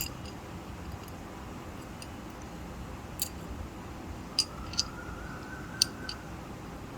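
A handful of light, sharp clicks and taps scattered over a steady low background hum, with a faint tone that rises and falls about four seconds in.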